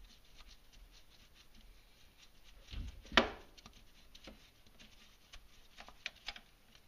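Gloved hand handling the loosened crankshaft pulley bolt of a Subaru engine: faint rubbing and a few small clicks, with one sharp click about three seconds in.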